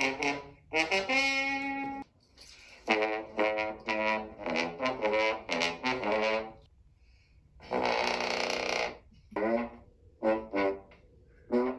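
Trombone played in short bursts of notes, with a sliding glissando near the start and a noisier, denser blast about eight seconds in.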